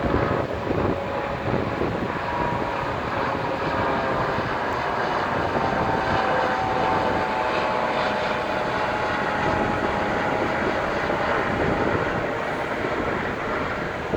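A low-flying aircraft passing, its engine drone sagging slowly in pitch, over a steady rushing background noise.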